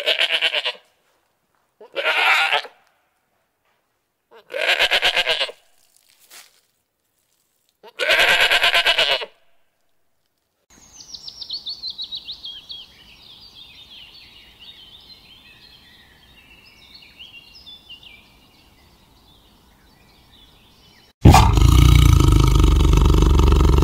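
Goat bleating four times, each bleat about a second long and a couple of seconds apart. Then comes a long run of faint, high, quick falling bird calls. Near the end a big cat lets out a sudden loud roar.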